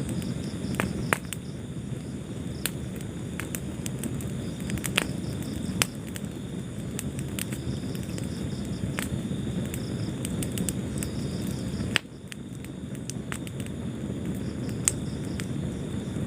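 Wood fire burning in a fireplace: a steady low rumble of flames with scattered sharp crackles and pops, and a faint high pulsing chirp, like crickets, behind it. The level drops abruptly about twelve seconds in, then builds back.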